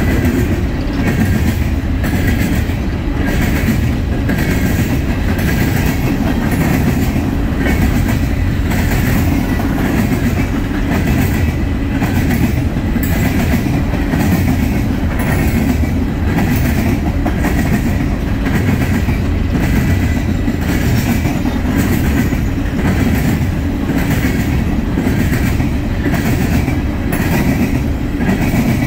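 Coal train of steel hopper cars passing at speed: a steady, loud rumble of wheels on rail with an even rhythm of clicks as the wheels run over the rail joints.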